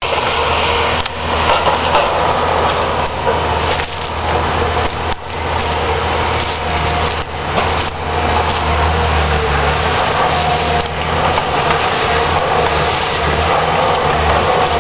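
Wood-cutting machine running and cutting through wood: a continuous noisy cutting sound over a low motor hum, with a few brief dips.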